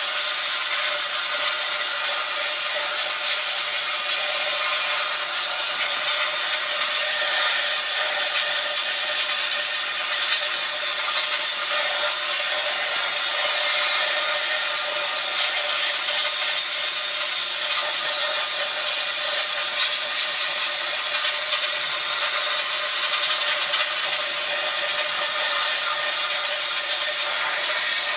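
Wet-blasting (vapor honing) cabinet in operation: compressed air drives a slurry of fine glass bead and aluminum oxide from the blast gun onto a machined 6061 aluminum part. It makes a steady hiss, with a constant hum underneath.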